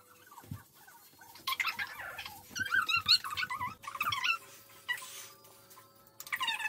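Plastic hair-dye applicator bottle being squeezed, sputtering and squeaking as dye and air are forced out of its nozzle. There are several bursts of wavering squeaks, most in the middle and again near the end.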